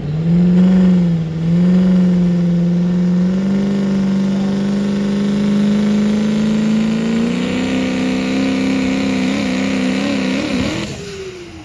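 Open-class diesel pickup truck pulling a weight-transfer sled at full throttle, its engine held at high revs under heavy load with a steady pitch that steps up a little twice along the run. Near the end the revs waver, then the throttle comes off and the engine note falls away.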